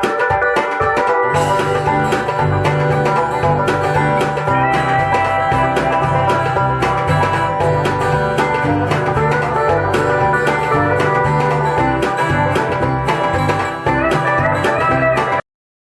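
Music with plucked strings, a steady bass line and drums, playing through Yamaha NS-590 speakers with beryllium-dome tweeters. The bass comes in about a second and a half in, and the music stops abruptly just before the end.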